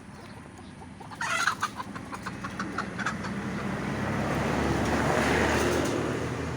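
A chicken clucking and squawking in a quick run of calls for about two seconds, starting about a second in. Then a vehicle passes, its engine and tyre noise swelling and fading away near the end.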